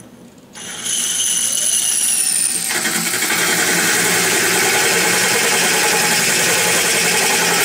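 Power drill with a diamond bit drilling through aquarium glass. The drill starts about half a second in with a whine that sags slightly in pitch, then about two seconds later a steady gritty grinding sets in as the bit cuts the glass.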